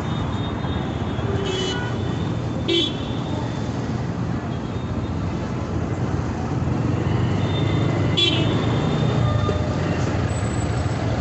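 Dense road traffic with engines running as a steady low rumble, cut through by short vehicle horn toots: one about a second and a half in, another near three seconds, and another about eight seconds in.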